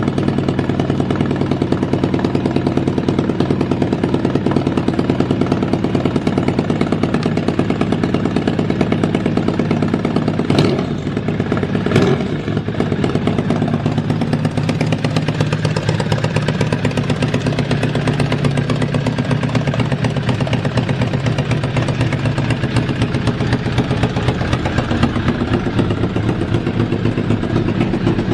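Kawasaki ZRX1200 DAEG inline-four motorcycle engine idling steadily with no abnormal noise. There are two short sharp clicks about ten and twelve seconds in, each with a brief dip in the engine sound.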